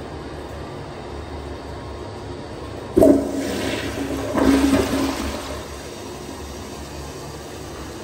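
Kohler tank toilet flushing: a sudden rush of water about three seconds in, surging again about a second and a half later, then dying away. A steady low rumble runs underneath before and after the flush.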